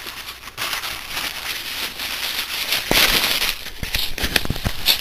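A paper towel being torn and handled: a crackly, rustling paper sound made of many small clicks, growing louder about three seconds in.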